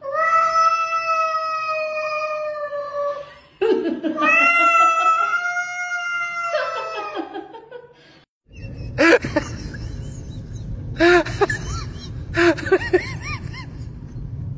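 Domestic cat giving two long drawn-out meows, each about three seconds, held on a steady pitch. After a short break comes a noisy stretch with a low rumble and several short rising-and-falling cries.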